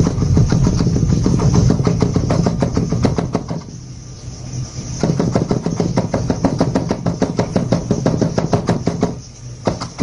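A fan brush loaded with dark green oil paint tapped rapidly against a small stretched canvas, stippling in foliage: a quick run of soft taps, several a second, that pauses briefly twice.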